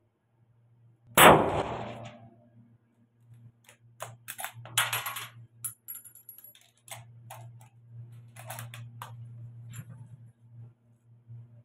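A single .303 British Lee-Enfield rifle shot about a second in, with a short echoing tail. It is followed by a series of sharp metallic clicks and clinks as the rifle and a fresh cartridge from the box are handled.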